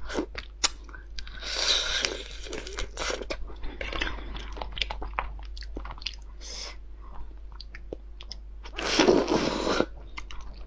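Close-up eating sounds from boiled slipper lobsters: the hard shells cracking and snapping as they are pulled apart by hand, with crunching and chewing. Two longer, louder crackling stretches come about two seconds in and near the end.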